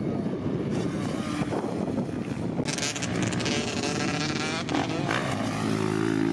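Four-stroke dirt bike engine being ridden on a motocross track, its revs rising and falling with the throttle.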